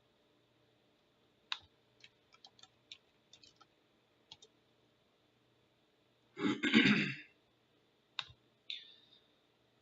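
A scattering of light sharp clicks over about three seconds, then a short loud breathy sound from a person, like a sigh or throat clearing, about six and a half seconds in, followed by one more click and a soft breath.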